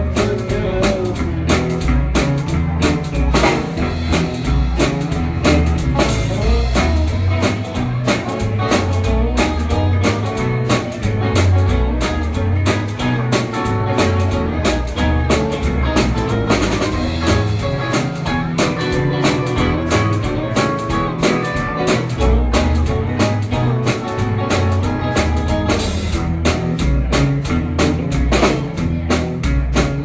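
Live band playing an instrumental section with no singing: electric guitars over a drum kit keeping a steady beat.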